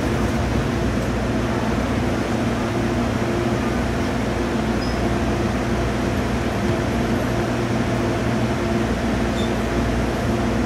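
Steady hum inside an MTR Tung Chung Line CAF train car, mainly the air-conditioning fans, with a few fixed low tones and no change in pitch or speed.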